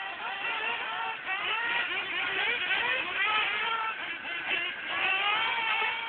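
Several radio-controlled model cars racing at once, their motors whining in many overlapping pitches that keep rising and falling as they speed up and slow down.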